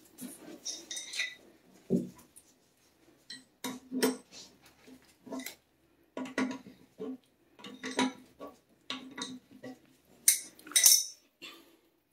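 Irregular metal clinks and taps from fittings and tools handled under a toilet tank while the water supply line is disconnected. There is a dull knock about two seconds in, and the loudest clinks come near the end.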